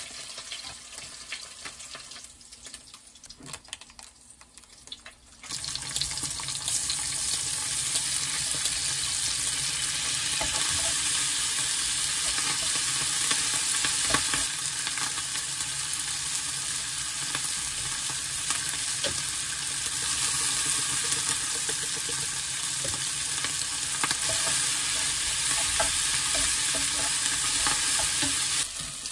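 From about five seconds in, kimchi, onion and meat sizzle steadily in a frying pan, stirred and scraped with a spatula.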